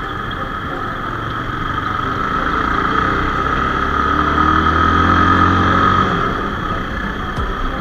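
A vehicle's engine running on the move. Its pitch rises steadily over a few seconds as it speeds up, then drops back about six seconds in.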